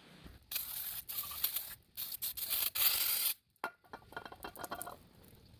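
Aerosol brake cleaner spraying onto an aluminium cylinder head in two long hissing bursts, degreasing it, followed by quieter spraying and rubbing.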